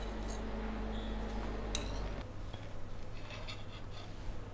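Metal spoons clinking lightly against a ceramic plate, a couple of sharp clicks, the clearest under two seconds in, as a sauce-coated potato ball is set down. A low steady hum underneath stops a little after two seconds in.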